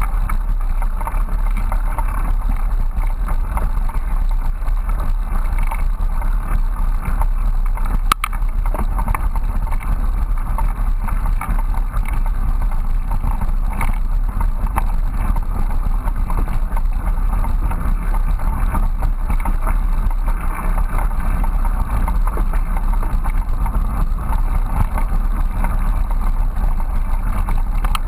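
Steady rumble of a bicycle riding a leaf-covered dirt trail, picked up by a GoPro mounted on the handlebars: tyres on the ground and the bike's vibration. A single sharp click comes about eight seconds in.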